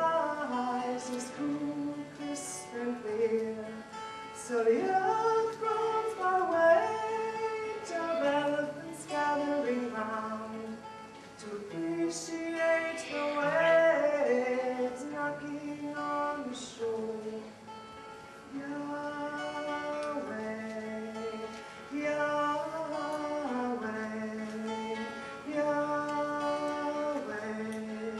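A woman singing a praise song while strumming an acoustic guitar.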